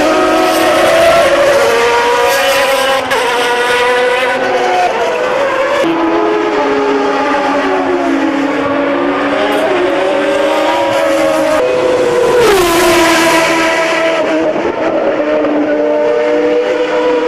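Several 1990 Formula One car engines running at high revs on the track, heard together as the cars pass. Their pitches rise and fall with gear changes, and one engine's pitch drops sharply about twelve seconds in.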